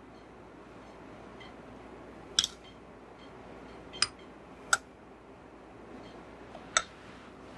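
Sharp clinks of small glass dishes knocking against a glass bowl as salt is tipped in: four short clicks, the first doubled, spaced one to two seconds apart over a faint room hiss.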